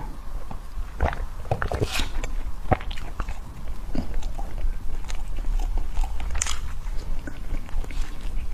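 Close-miked eating sounds: a pink ring-shaped cake being bitten and chewed, giving many short, irregular clicks and mouth noises.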